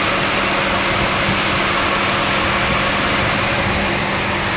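A 1998 Honda Accord's engine running with the AC on, with its electric condenser cooling fan running alongside as a steady whooshing hum. The fan, which was not switching on with the AC, now runs after being tapped, pointing to a sticking fan motor.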